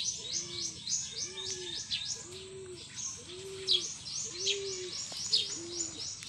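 Birds chirping: many quick, high, downward-sweeping chirps over a steady series of low, soft cooing notes repeating a little under twice a second.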